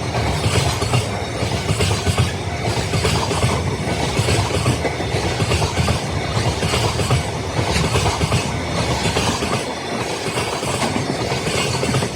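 Freight train hauled by a DF200 diesel locomotive rolling past at close range, its wheels clacking over the rail joints in a steady repeating rhythm over a continuous low rumble.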